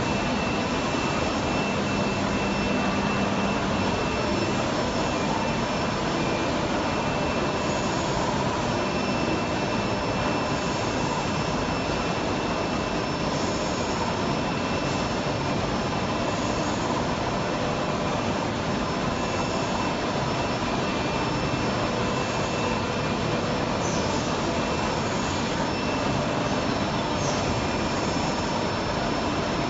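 Four-spindle CNC mortiser and tenoner running, a steady machine noise with faint steady whines from its spindles and drives.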